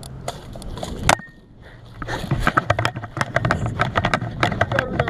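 A sharp click about a second in, then from about two seconds a dense, irregular clatter and rustle of gear and movement close to the camera, over a low rumble.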